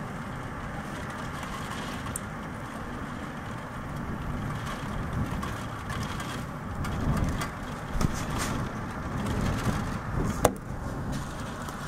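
Storm wind gusting, with rain on the window glass and a few sharp taps, one about eight seconds in and a louder one near the end.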